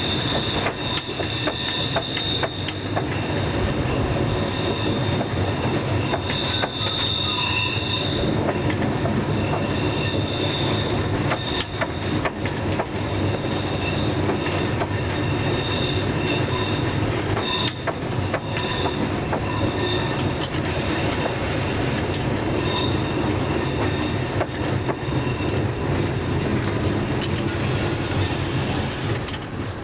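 Ferkeltaxe diesel railbus running along a single-track branch line, its engine and running gear making a steady drone. High-pitched wheel squeal comes and goes as it takes the curve.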